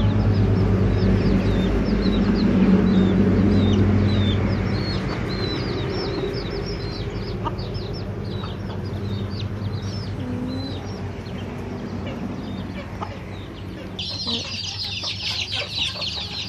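Chickens clucking and chirping, with many short high peeps throughout that become a dense chorus near the end, over a low steady hum that fades after about five seconds.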